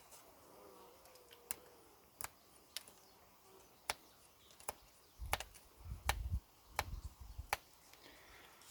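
Victorinox Alox pocket knife blade carving into a fresh hardwood stick: a series of sharp, separate clicks as the blade bites and cuts, roughly one every half second to second, with low thumps among them in the second half.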